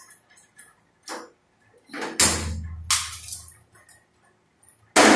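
Metal cookware handled on a gas stove as a burner is lit: a few faint clicks, then loud clattering bursts about two seconds in and again right at the end.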